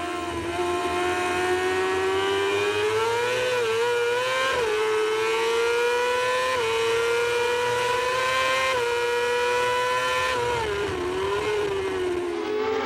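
Moto2 racing motorcycle's Honda 600 cc four-cylinder engine at full throttle, heard from the onboard camera with wind rush. The pitch climbs in the first seconds, dips briefly at several gear changes, then falls and wavers near the end as the rider backs off.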